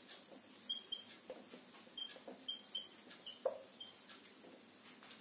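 Whiteboard marker squeaking faintly on the board in short, irregular strokes as words are written.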